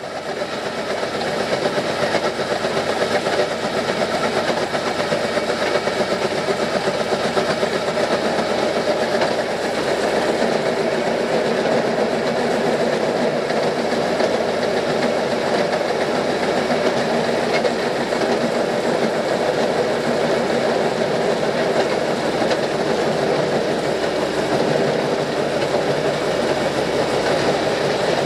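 Fairmont MT14 rail speeder running along the track: engine, chain drive and steel wheels on the rails make a steady running noise. The transmission, chain and wheels don't sound quite right, an early sign of the rear axle that was starting to break.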